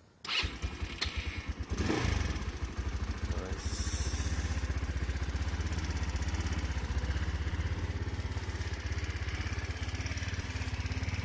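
GY6 scooter engine, freshly rebuilt with a 62 mm big bore kit (174cc), starting for the first time: it catches with a few uneven firings, revs briefly about two seconds in, then settles into a steady idle.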